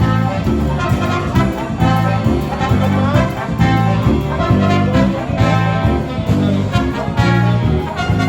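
Background music: a jazzy tune with brass instruments over a steady, pulsing bass beat.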